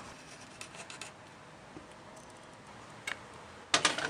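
Light clicks from an electric stove's control knob being turned, then near the end a short, loud clatter of a frying pan being set down on the stove.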